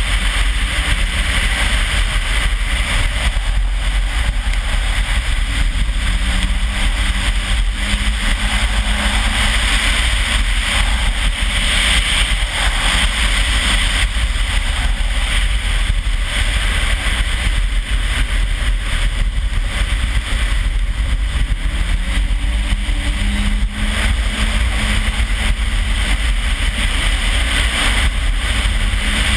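Toyota RAV4's turbocharged 3S-GTE engine under hard driving on wet ice, its pitch rising several times, over a steady rush of water and slush thrown up by the tyres.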